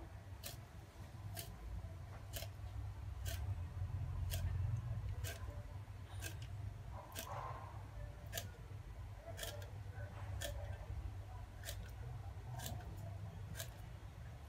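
Kitchen knife scaling a fish on a wooden chopping block: each scraping stroke gives a sharp click, about once a second, over a low steady hum.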